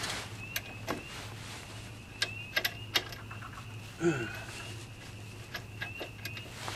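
Irregular light metallic clicks and ticks of hand tools at work on a car's front hub as a freshly loosened bolt is worked out, over a low steady hum. A short grunt comes about four seconds in.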